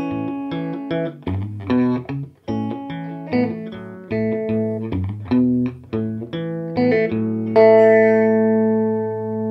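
Electric guitar played clean through an early-1960s Davoli D531T valve amplifier with its tremolo off: a run of picked notes and short chords, ending on a chord that is left to ring and slowly die away.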